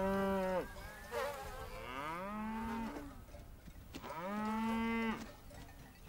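Cattle mooing: three drawn-out calls, the middle one longer with a gliding pitch.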